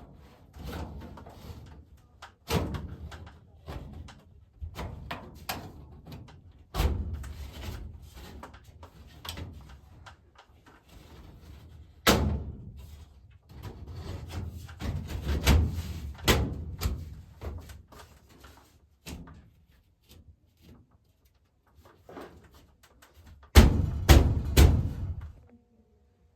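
Sheet-metal plenum panels being fitted and knocked into place around a furnace coil: an irregular string of sharp metal clanks and knocks, with a loud cluster of hits near the end.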